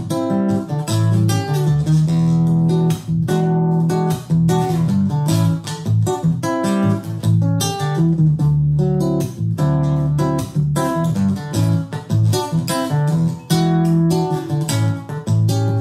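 Solo acoustic-electric guitar playing chords in a steady strummed rhythm, each strum sounding as a crisp attack over a ringing chord.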